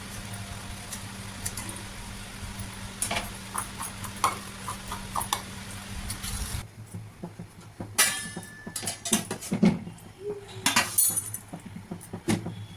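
Kitchen dishes and utensils clinking and knocking over a steady hum; the hum stops abruptly about two-thirds in, and a few sharper knocks and clinks follow.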